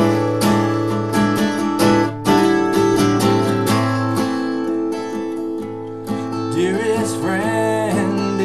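Acoustic guitar strummed in a steady rhythm, the chords then left ringing more softly. A man's singing voice comes in over the guitar about two-thirds of the way through.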